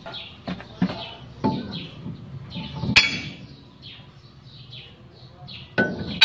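Birds chirping in short, repeated downward-sliding calls, with a few sharp knocks, the loudest about three seconds in.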